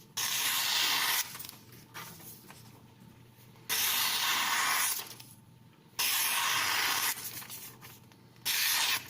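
Freshly sharpened kitchen knife slicing through paper to test its edge: four separate cuts of about a second each.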